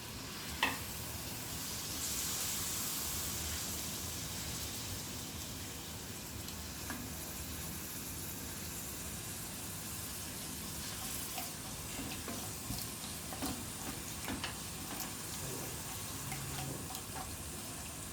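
Minced mutton sizzling steadily in hot oil in a pan, with a sharp utensil click about half a second in and a few light scrapes and knocks later as it is stirred.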